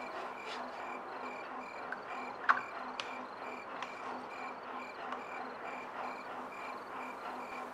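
Cricket chirping steadily, about three chirps a second. There is a sharp click about two and a half seconds in, and a few fainter taps.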